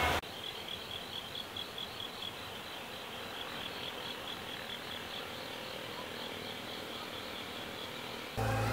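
An insect chirping in a steady rhythm, about four short high-pitched chirps a second at one pitch, over a faint hiss of the forest.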